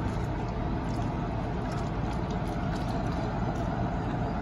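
Steady low engine rumble with no change in pitch or level.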